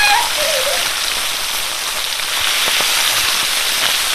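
Whole fish, rubbed with salt and turmeric, frying in hot oil in a black iron pan: a steady, dense sizzle and crackle of bubbling, spitting oil.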